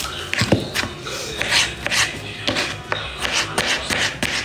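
Knife scraping along a hand-held cucumber as its skin is peeled, a quick, irregular run of short scraping strokes, with faint background music.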